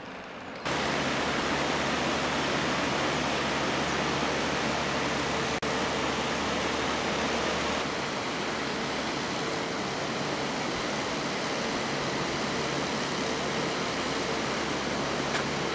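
Steady rushing of river water, an even hiss that sets in abruptly about a second in, with a faint steady hum underneath.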